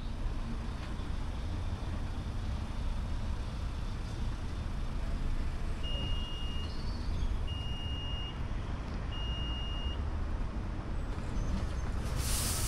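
Automatic rollover car wash starting up: a steady low rumble, three long electronic beeps about a second and a half apart, then a hiss of water spray starting near the end as the wash cycle begins.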